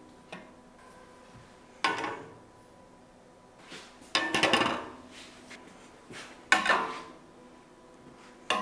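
Steel tubing knocking against a welded tubular steel frame as a brace tube is set in place: four separate clanks about two seconds apart, each leaving the metal ringing briefly.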